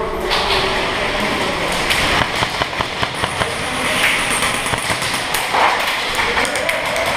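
Airsoft guns firing in an indoor close-quarters arena: a fast run of sharp clicking shots and BB impacts about two seconds in, with scattered knocks and distant shouts around it.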